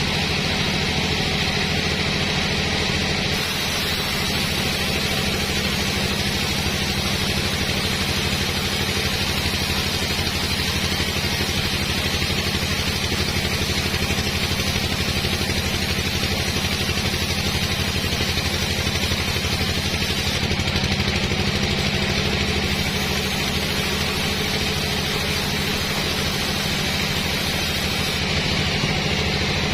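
Sawmill machinery running steadily: a constant engine hum with a steady hiss above it.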